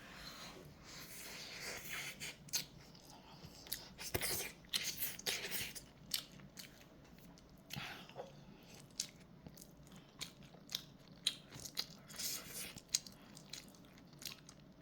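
A person chewing and biting mouthfuls of kimchi fried rice close to the microphone, with irregular wet clicks and smacks of the mouth.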